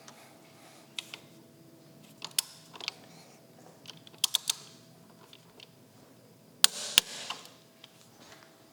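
Scattered light clicks and taps of hand work on a motorcycle handlebar phone mount, with a quick run of three clicks midway and a louder pair of clicks about seven seconds in.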